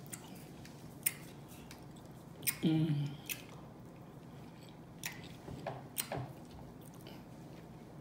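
A person chewing food with wet mouth smacks and scattered sharp clicks. A short hummed vocal sound comes about two and a half seconds in.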